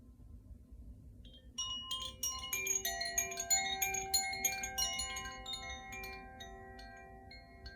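Koshi chime being played: from about a second and a half in, a flurry of quick strikes on its tuned rods, the ringing notes overlapping and slowly fading toward the end.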